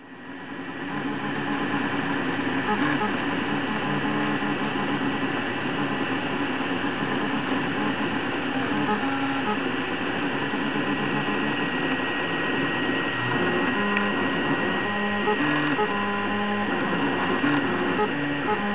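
Prusa i3 3D printer running a print: its stepper motors whine in short, steady tones that jump in pitch every fraction of a second as the hotend moves back and forth, over the steady whir of the cooling fans. The sound fades in at the start.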